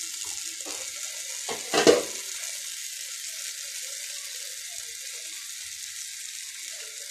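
Soaked broken rice sizzling as it fries in oil and spice paste in an aluminium pot, a steady hiss. One sharp knock about two seconds in is the loudest sound.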